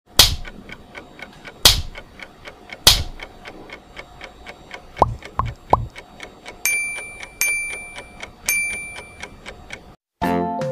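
Logo intro sound effect of a clock ticking fast and evenly, cut by three loud sharp hits in the first three seconds, three short pitched blips about five seconds in, then three ringing chime dings. A bright tuned music jingle starts just before the end.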